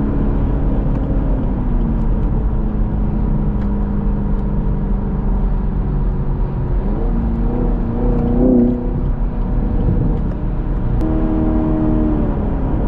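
Car engine running at freeway speed over a steady rumble of road and wind noise, heard from inside a car. Its pitch climbs as it accelerates about seven seconds in, loudest around eight and a half seconds, then rises again briefly and falls away near the end.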